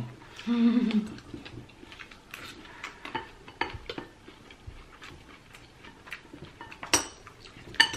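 Chopsticks and spoons clicking and scraping against ceramic bowls while eating, as scattered light taps with a few sharper clinks near the end. A brief hummed voice about half a second in.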